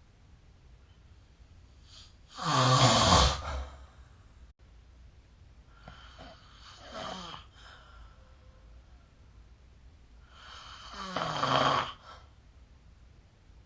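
A sleeping person snoring: two loud snores about eight seconds apart, with a fainter breath between them.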